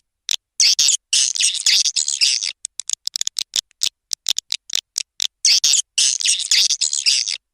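Swiftlets (burung walet) twittering in a swiftlet-house call recording: a quick run of sharp high chirps and clicks, broken by two longer bursts of dense chattering, about a second in and again near the end.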